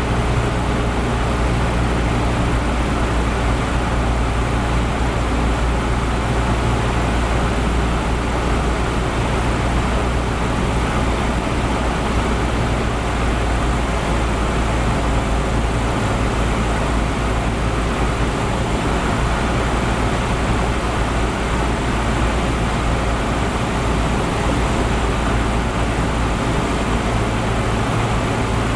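Cessna 172's piston engine and propeller droning steadily on final approach to landing.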